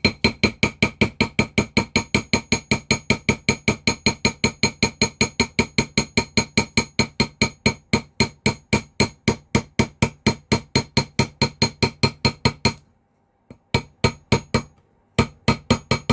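Rapid light hammer taps, about five a second, on a metal rivet supported on a steel ring mandrel, each tap ringing with a metallic tone. The taps stop about thirteen seconds in, resume for a few strokes, pause again and start up once more near the end. This is the final flattening out of the rivet head on a riveted pebble ring.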